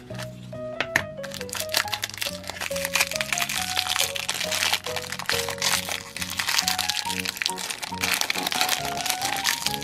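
Plastic wrapping crinkling and crackling as a toy's small packets are unwrapped by hand, over light background music with a simple melody.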